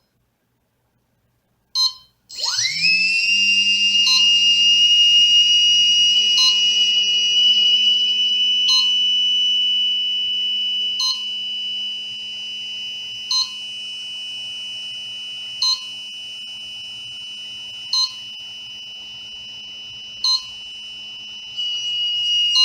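A short beep, then a drone's motor spins up with a quick rising whine and runs steadily at a high pitch. Short beeps come about every two seconds. The motor gets quieter about halfway through and louder again near the end.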